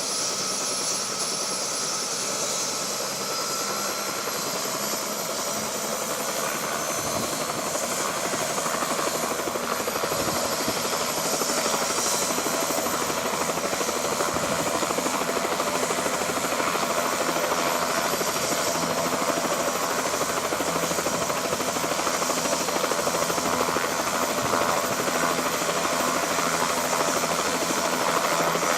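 Helicopter turbine and rotor running steadily, a dense noise with a thin high whine over it, slowly growing louder.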